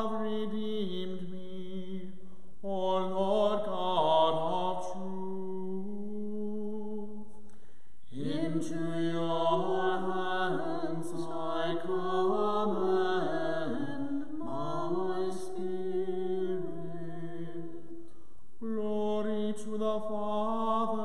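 A man's voice chanting unaccompanied in liturgical phrases, holding long steady notes with short breaths between phrases, about 2.5, 8 and 18.5 seconds in.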